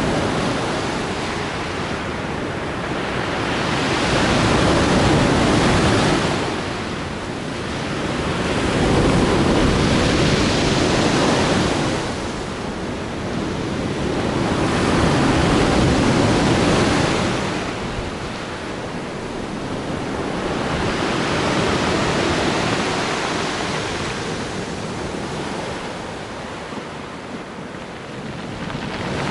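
Sea waves breaking on the shore in slow surges, each swelling and fading, one every five or six seconds.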